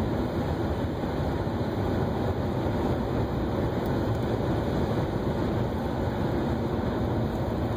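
Steady road noise of a car driving along a multi-lane boulevard, heard inside the cabin: a continuous low rumble of tyres and engine.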